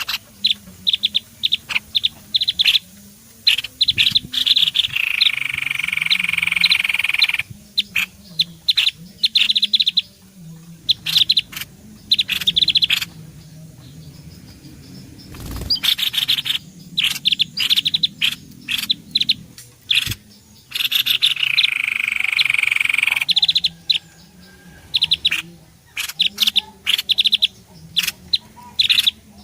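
Bird-lure recording of small songbird calls: rapid, sharp chipping notes broken by a buzzy churring call about two seconds long, a pattern that comes round twice as a loop.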